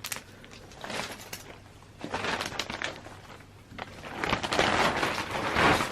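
Crinkling and rustling of a bag being handled, in short bursts at first and then a longer, louder stretch over the last two seconds.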